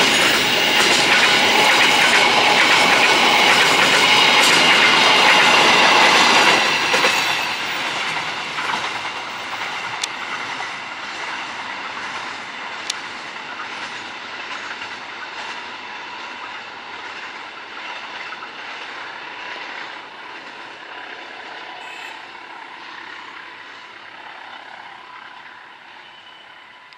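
Fully loaded container freight train's wagons rolling past on the rails, with a high steady whine over the wheel noise. The last wagons pass about six or seven seconds in, and the sound then fades gradually as the train moves away.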